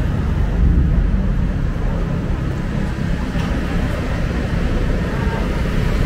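City street ambience: a steady low rumble of road traffic, with indistinct voices of passers-by.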